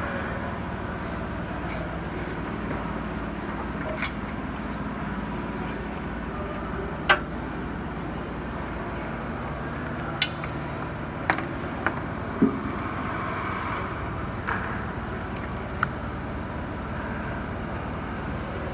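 Steady low mechanical hum under a handful of sharp clicks and knocks, spaced a second or more apart, as the service body's metal compartment doors, latches and a crane cord connector are handled.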